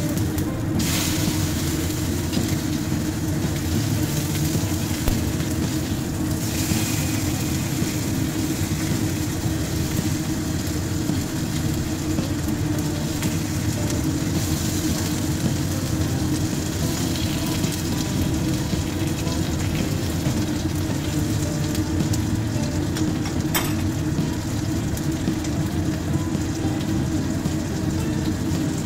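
Homemade salted fish frying in hot oil, a steady sizzle throughout, with one sharp tick from a utensil a little past two-thirds of the way through.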